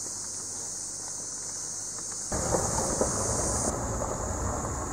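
A steady high-pitched insect chorus; about two seconds in it gives way to the louder low rumble of a pickup truck on the move, heard from inside the cab.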